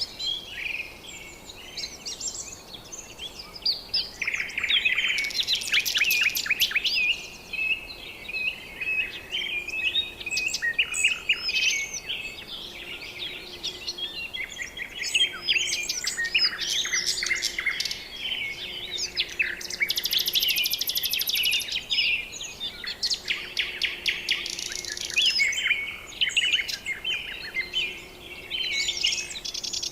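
A chorus of many birds chirping and calling over one another, with quick whistled sweeps and rapid buzzy trills.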